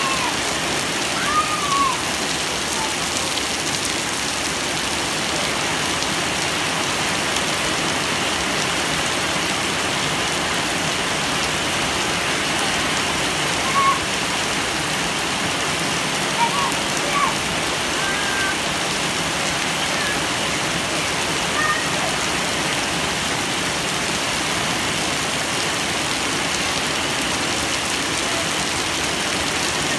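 Heavy rain falling steadily, an even hiss of downpour on the gravel yard and trees. Children's voices call out briefly a few times over it, near the start and in the middle.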